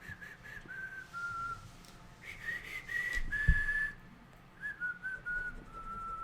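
A person whistling a slow tune, the notes stepping up and down with some held longer, and a single low thump about halfway through.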